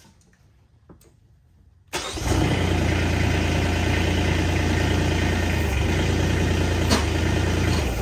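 Kubota SCL1000 compact track loader's diesel engine starting about two seconds in and then running at a steady idle.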